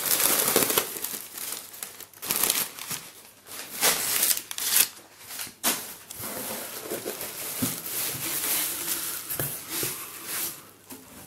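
Crumpled packing paper rustling and crinkling in irregular handfuls as it is pulled about in a cardboard box, then bubble wrap crinkling as a wrapped picture frame is lifted out.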